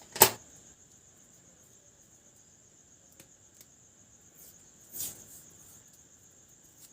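Electrical tape being handled on freshly joined fan wires: a sharp snap just after the start, a few light ticks, and a short rasp about five seconds in as tape is pulled off the roll.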